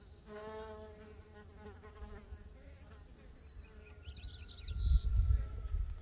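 A mason bee's wings buzzing as it takes off from a drilled wooden nesting block: a short pitched buzz just after the start that fades over a second or two. About five seconds in, a low rumble is the loudest sound, with faint high chirps over it.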